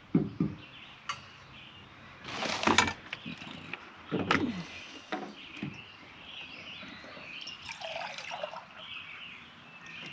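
Water poured from a plastic gallon jug into a small metal pot on a camp stove, with a few clinks and knocks of the pot and utensils before it. Birds chirp faintly in the background.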